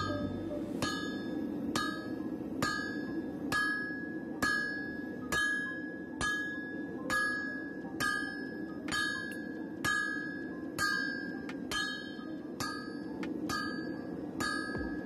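Hand hammer striking red-hot leaf spring steel on an anvil, drawing out a blade: steady, even blows a little under a second apart, each leaving a bright ring from the anvil.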